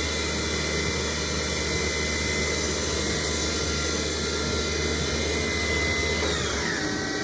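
MAHO MH 1200 S CNC machining centre running: a steady motor whine over a low hum. Near the end the whine falls in pitch as a motor slows.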